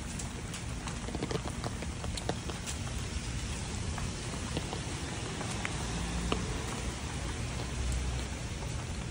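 Steady monsoon rain falling, with scattered sharp ticks of drops striking close by.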